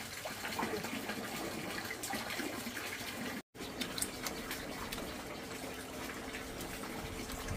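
Running water splashing, with small clicks and knocks over it. The sound breaks off for an instant about three and a half seconds in, and a faint steady hum joins it afterwards.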